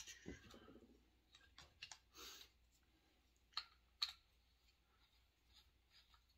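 Faint metallic clicks and taps of a T-handle hex key working bolts on a Husqvarna 266 SE chainsaw. There are a handful of sharp clicks, the loudest pair about three and a half and four seconds in, and a short rasp about two seconds in.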